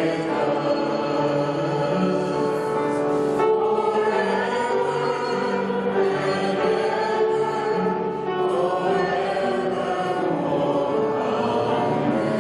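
Music with a choir singing, held notes and steady volume throughout.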